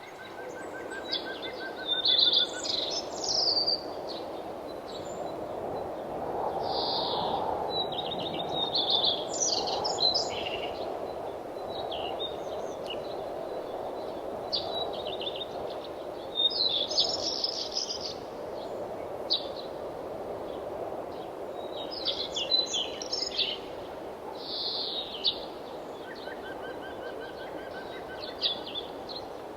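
Wild songbirds chirping and trilling in many short, high calls, scattered throughout, over a steady rushing background of wind.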